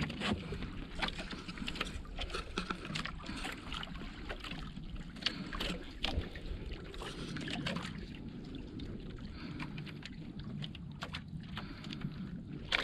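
Water lapping against a small wooden outrigger fishing boat, with a steady low rumble and many small irregular clicks and knocks as a tuna hand line is hauled in hand over hand.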